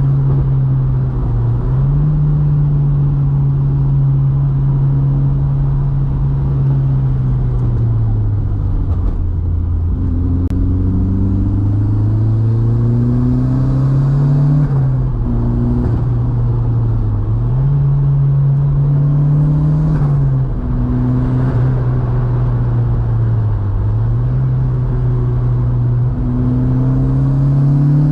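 VW Mk2's turbocharged 1.8T four-cylinder engine pulling under load, its pitch climbing and falling several times as the driver accelerates, shifts and lifts off through the bends, with tyre and road noise underneath.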